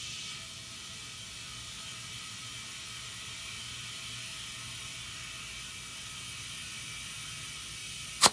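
A car tire being inflated: a steady hiss of air with a faint whir underneath. Near the end a single sharp click cuts the hiss off.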